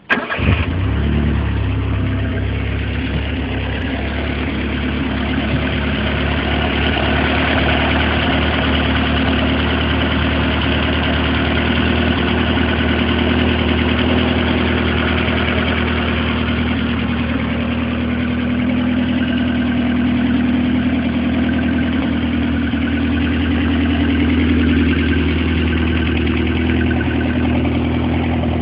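A 2.3-litre, 128 hp car engine fires up and settles into a steady idle, with only slight swells in speed.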